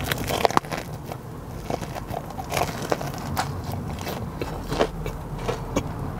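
Biting into and chewing a Korean corn dog coated in fried chicken pieces: short crisp crunches and crackles from the fried coating, scattered throughout, close to the microphone.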